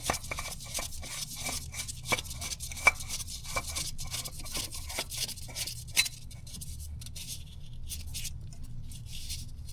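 New oil filter being spun onto its threaded mount by hand: repeated light clicks and scraping of the metal canister and hand turning it, giving way to softer rubbing about six seconds in.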